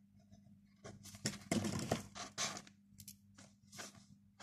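Ballpoint pens on paper: short writing strokes and pens being picked up and handled, heard as a series of brief scratches and light taps over a faint steady hum.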